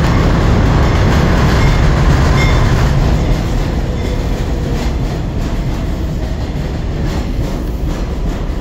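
New York City Subway 7 train of R188 cars pulling into an elevated station along the platform, with a loud, steady rumble of wheels on rail. The sound eases off about three seconds in.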